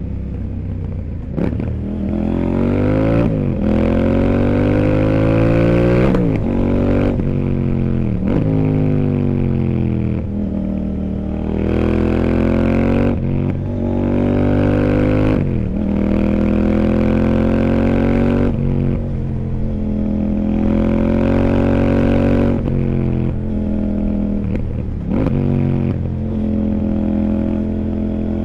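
CFMOTO 800NK Sport's parallel-twin engine, heard from on the bike, pulling hard and shifting over and over. The revs climb for a second or two, then drop at each gear change or throttle roll-off, about a dozen times.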